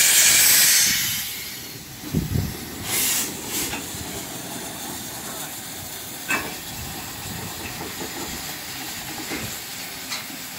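15-inch-gauge steam locomotive letting off a loud hiss of steam that dies away a little over a second in. Then come a low knock, a shorter second hiss, and a few faint knocks.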